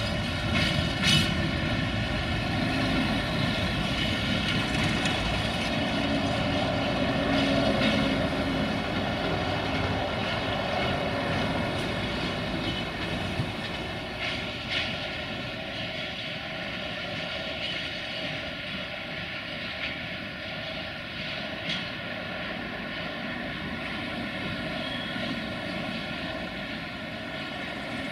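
Freight train of tank wagons rolling past and away: a steady drone of wheels on rail with several ringing tones over it, slowly fading. A few sharp clicks as the wheels run over the rail joints.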